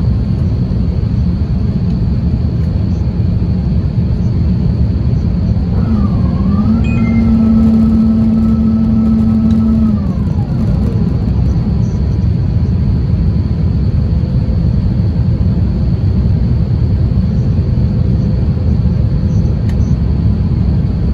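Steady low cabin rumble of an Airbus A350-1000 airliner in descent, seat over the wing. About six seconds in, a mechanical whine rises, holds level for about four seconds, then winds down.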